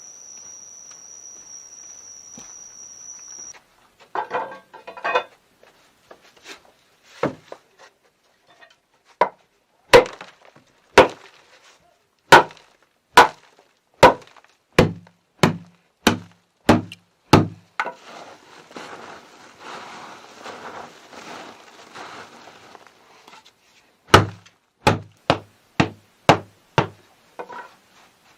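Wood being chopped: a series of sharp, heavy blows about one a second, then a stretch of rustling and scraping, then a quicker run of blows near the end. A steady high-pitched whine is heard for the first few seconds.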